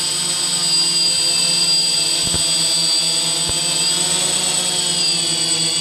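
DJI Phantom FC40 quadcopter hovering, its four rotors giving a steady high whine that dips and recovers slightly in pitch about four seconds in as the motors adjust. The motors, repaired after the drone was dunked in water, are running smoothly.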